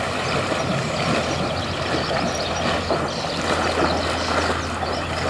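Horse wading through a shallow river, its legs splashing through the water steadily, over a constant low rumble.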